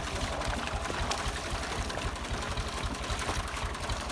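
Ursus tractor's diesel engine running steadily with an even, rapid low chugging.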